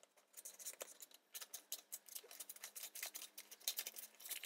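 Scissors snipping through packing tape on a mailing envelope: a quick, irregular run of faint snips.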